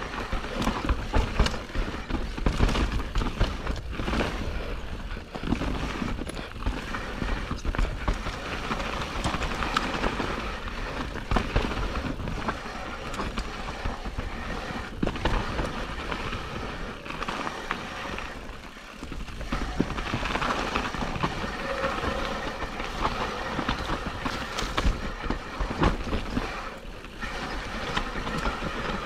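Mountain bike riding fast down a rough trail: tyre noise over dirt and rocks with constant rattling and knocks from the bike over bumps, and wind rumbling on the microphone. It eases off briefly a little over halfway through.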